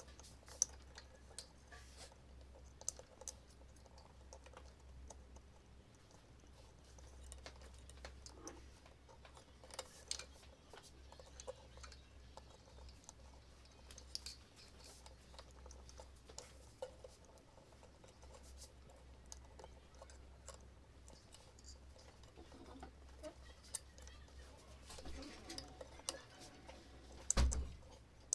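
Scattered light clicks and taps, irregular, over a steady low hum, with one louder knock near the end.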